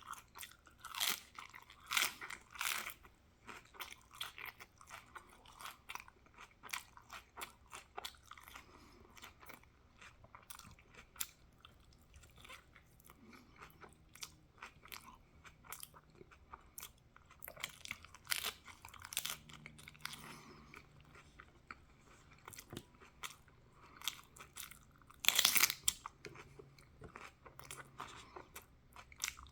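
A person chewing crunchy food such as tacos and raw vegetables close to the microphone: messy, continuous munching with many small mouth clicks, broken by several louder crunches, the loudest near the end.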